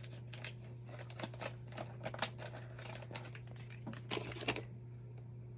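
Crinkling and rustling of a plastic makeup-wipe packet being handled, a quick run of small crackles that stops about four and a half seconds in.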